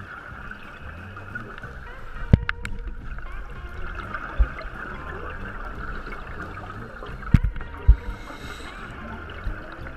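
Underwater sound on a scuba dive: a steady rush of water noise with gurgling of divers' exhaled bubbles, broken by several sharp knocks, the loudest about two and a half and seven and a half seconds in.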